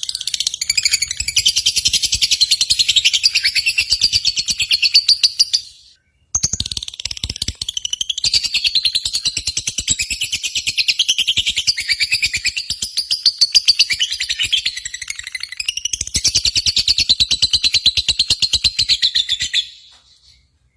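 Lovebirds chattering in long, unbroken runs of rapid high notes, like the song heard at lovebird singing contests. There is a short break about six seconds in, and the chatter stops near the end.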